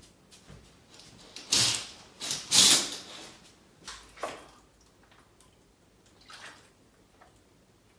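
Two loud whooshing, rustling noises in quick succession, then quieter handling sounds of a plastic water bottle as it is opened and drunk from.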